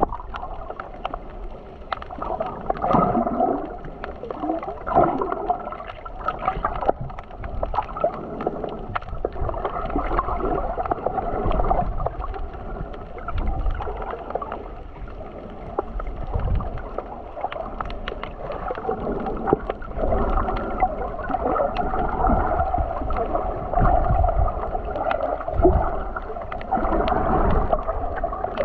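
Muffled sea water sloshing and gurgling around the camera, in slow surges, with scattered small clicks and low thumps.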